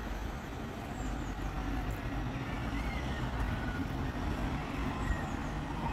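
Steady rumble of road traffic passing over a light-rail level crossing, with a few faint bird chirps.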